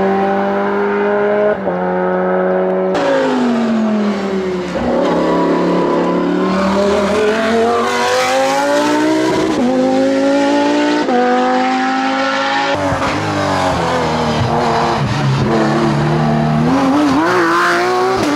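Racing car engines at full throttle on a hillclimb, the engine note climbing, then dropping with quick gear changes and lifts for corners. Three different cars follow one another with sharp cuts about three seconds in and near thirteen seconds: a Lamborghini Huracán GT3's V10 in the middle, and a Porsche 911 race car's flat-six last.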